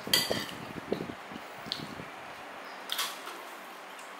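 An eating utensil clinks against a dish three times, the first the loudest with a brief ring, with chewing in between.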